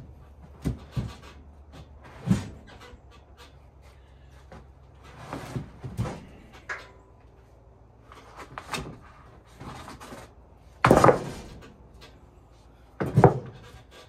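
Irregular wooden knocks and thumps, as of boards or slabs being handled and set down, with the two loudest near the end. The saw is not cutting.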